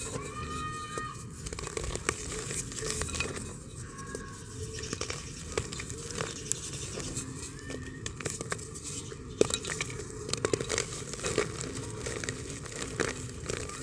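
Dry, hard lumps of multani mitti (fuller's earth) crushed and crumbled between the fingers, giving a dense crackling and crunching, with powder and bits pattering into a clay pot. A few louder cracks come about two-thirds of the way through.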